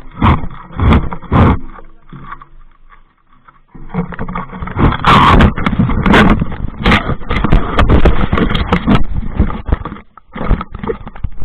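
Handling noise on an action camera's microphone: fabric and fingers rubbing, scraping and knocking against it as the camera is handled. It is very loud and close, with a short lull about three seconds in and the densest rubbing from about four to nine seconds.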